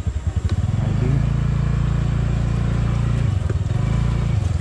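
TVS Ntorq 125 scooter's single-cylinder engine pulling away from a standstill. The note is uneven for the first second, then runs steady, and dips briefly a little over three seconds in before picking up again.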